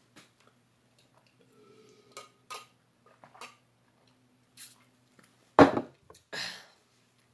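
Scattered small clicks while a drink is sipped from a glass, then a loud knock about three-quarters of the way through as the glass is set down on the table, followed by a shorter, softer noise.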